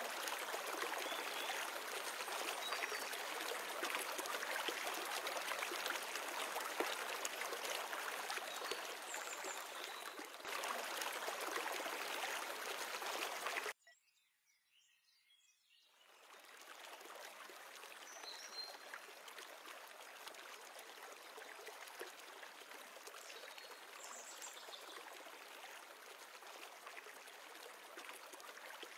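A river flowing over rocks: a steady rushing hiss of water. Around the middle it drops out for about two seconds, then comes back quieter.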